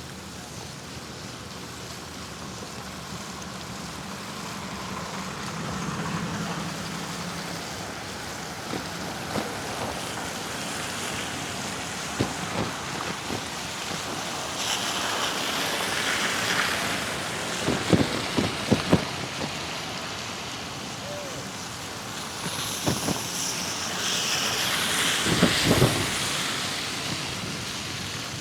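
Wind buffeting the microphone of a rider's camera on a moving bicycle, over steady street and tyre noise. A hissing swell rises twice in the second half, and each swell carries a few sharp knocks or clunks.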